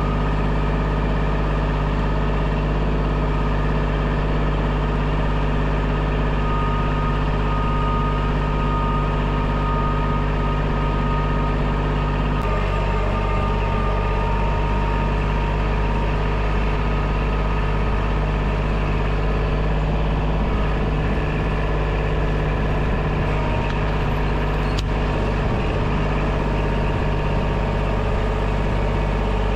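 Kubota compact tractor's diesel engine running steadily, its note shifting slightly about twelve seconds in.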